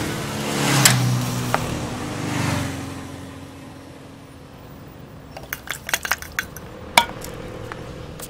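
A motor vehicle's engine passes and fades away over the first three seconds. From about five seconds in comes a run of light metallic clinks and taps, the loudest about seven seconds in.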